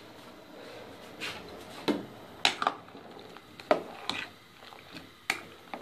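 A spoon stirring turnip slices in a metal pot of boiling water, knocking against the pot in about half a dozen sharp clinks over a low steady hiss.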